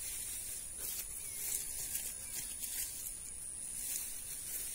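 Faint rustling of wet grass with a few light ticks, over a steady high-pitched hiss.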